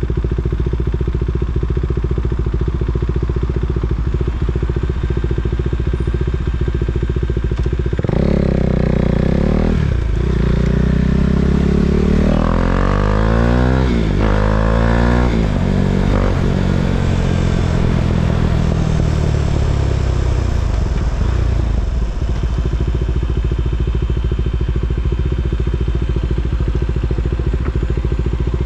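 KTM Duke 390's single-cylinder engine idling, then about eight seconds in it revs up hard through the gears with short breaks at the shifts. The revs then fall away as it slows, and it settles back to a steady idle for the last several seconds.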